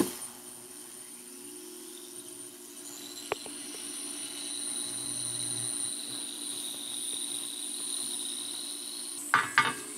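TruSonik TS-2.5L ultrasonic cleaner running with a carburetor soaking in its bath. It gives a steady high buzz over a faint low hum, growing a little louder over the first few seconds. There is a click at the start, a single tick midway and a few knocks near the end.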